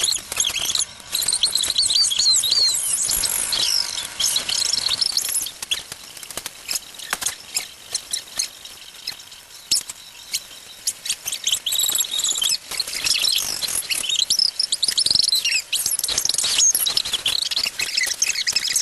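Sped-up, reversed audio: many short, high, squeaky chirps over a dense run of rapid clicks, thickest in the first few seconds and again near the end.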